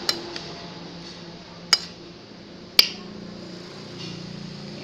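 Metal spoon clinking against a glass bowl while stirring chopped fruit: three sharp clinks with a short ring, one right at the start, one near two seconds and one near three.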